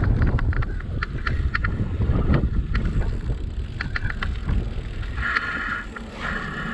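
Wind buffeting the microphone over the rumble of a bicycle being ridden, with many sharp clicks and rattles. About five seconds in the rumble eases, and a higher buzzing starts and stops abruptly twice.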